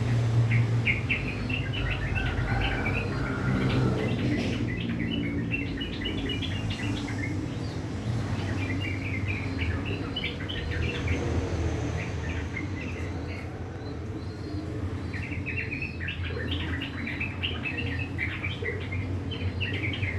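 Yellow-vented bulbul (trucukan) singing rough, chattering phrases of quick notes in several bursts, over a steady low hum.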